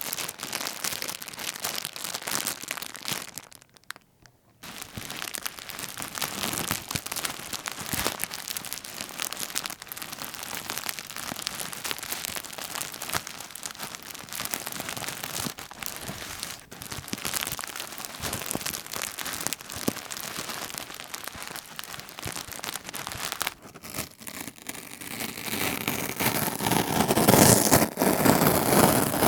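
Plastic sheet being crumpled and crinkled by hand, a dense crackling rustle with a brief pause about four seconds in. It grows louder over the last few seconds.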